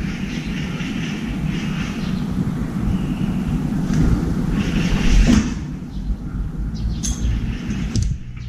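Steady low rumble of city traffic, with a louder thump about five seconds in. Near the end a few sharp knocks and swishes as a crow flies in and lands on the metal balcony railing.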